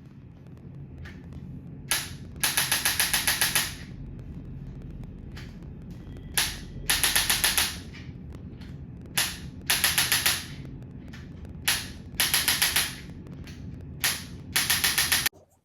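Chiropractic adjusting instrument firing in rounds of rapid clicks: five times a single click, then a quick train of about eight clicks lasting about a second. A steady low hum runs underneath and cuts off near the end.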